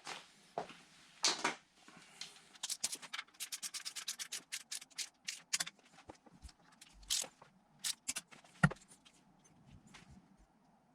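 Ratchet wrench clicking quickly as M10 bolts are run down and tightened toward 40 N·m, several clicks a second for a few seconds. Slower scattered clicks follow, with one louder sharp click near the end.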